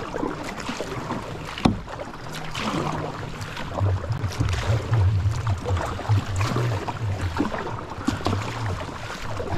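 Kayak paddle strokes dipping and pulling through the water, with water rushing past the hull while the kayak is paddled hard against a strong river current. A sharp knock about one and a half seconds in, and a low rumble through the second half.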